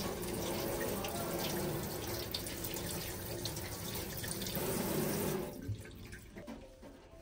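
Water running from a tap into a sink, stopping about five and a half seconds in.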